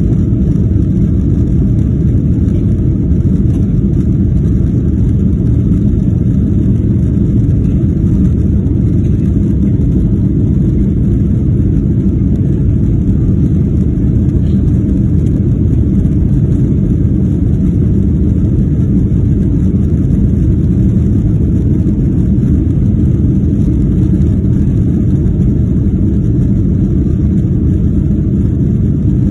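Steady low rumble of a jet airliner's engines and airflow heard inside the passenger cabin during the climb just after takeoff.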